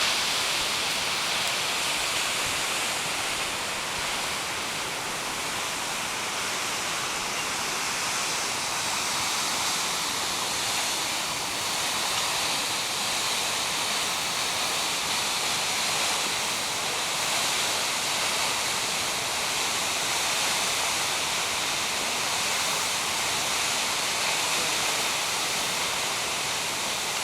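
Steady rush of Sipi Falls, a large waterfall, pouring close by.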